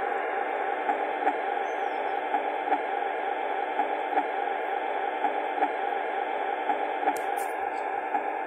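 Skip Hop elephant nightlight soother playing one of its built-in sleep sounds through its small speaker: a steady, thin noise with faint regular pulses.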